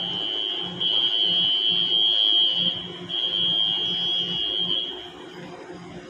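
Railway platform warning buzzer sounding one steady high-pitched tone, broken twice for an instant, to signal a train about to pass through. It stops about five seconds in.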